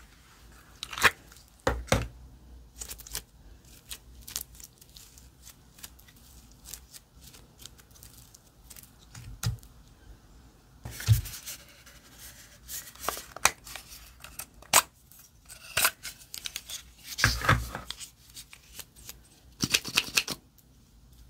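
Slime being worked by hand: irregular sticky clicks, pops and crackles, with a few louder bursts about halfway through and near the end.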